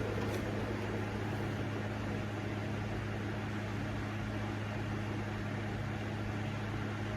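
Moss Caribbean Breeze ceiling fan whirring with a steady hum and a rush of air, easing off slowly. There is a faint click just after the start.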